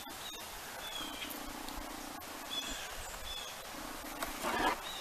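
Small birds chirping over and over in the background, with a steady low buzz that comes and goes in stretches of a second or so. A short rustle of hands handling food comes about four and a half seconds in.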